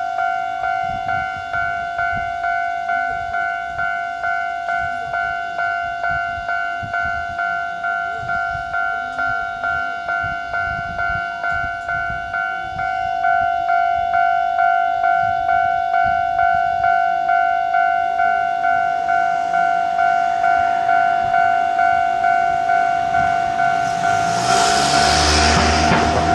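Japanese level-crossing warning bell ringing steadily, about one and a half strikes a second, louder from about halfway. Near the end an ex-Mizushima Rinkai Kiha diesel railcar comes up to the crossing, its engine and running noise rising over the bell.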